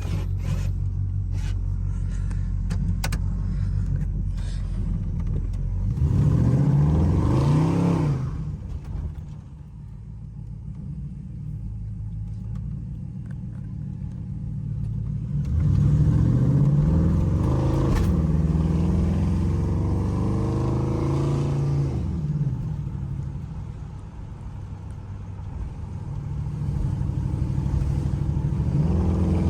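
A 5.3-litre LS V8 in a car running steadily, then accelerating hard about six seconds in and again about sixteen seconds in. Each time the engine note climbs and drops as the automatic transmission shifts, and it builds once more near the end.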